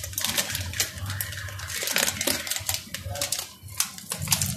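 Chicken broth at a rolling boil in a wide pan, bubbling with rapid, irregular pops and crackles.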